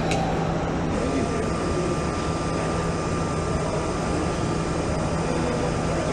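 Steady factory machinery noise from an automated assembly station, with a constant low hum and a faint high whine that sets in about a second in.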